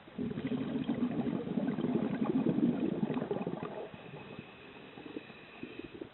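Scuba diver's exhaled air bubbling out of the regulator for about three and a half seconds, a dense gurgling burble, then dropping back to a quieter background.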